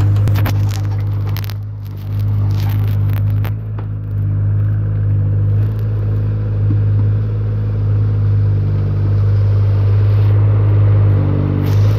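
JCB 8018 mini excavator's diesel engine running steadily while the arm digs. There are sharp clicks and scrapes in the first few seconds.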